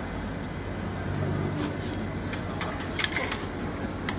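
Metal spatulas scraping and clacking on the stainless steel freezing pan of a fried ice cream machine as ice cream rolls are scraped up, with a few sharp clacks in the second half, the loudest cluster about three seconds in. Underneath runs a steady low hum with crowd murmur.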